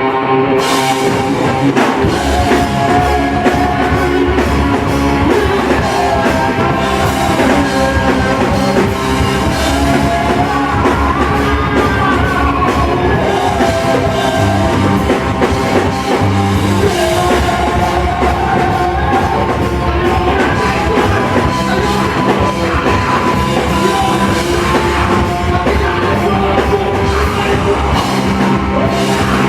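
Rock band playing loud, with drum kit, guitars and a wavering sung melody; the drums and bass come in about two seconds in.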